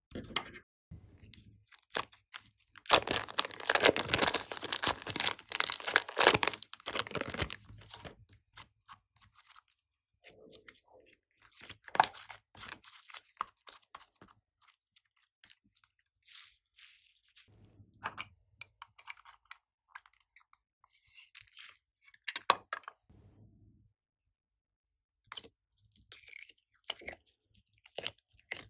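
Slime being kneaded and stretched by hand, giving a dense run of crackling and popping for a few seconds, then scattered pops and soft squishes.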